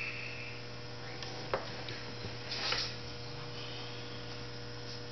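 Steady low electrical hum, with a single light click about a second and a half in and a brief rustle near the middle.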